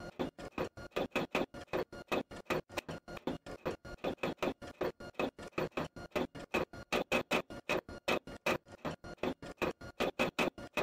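Rapid, even ticking, about five ticks a second, each tick carrying a short ringing pitch.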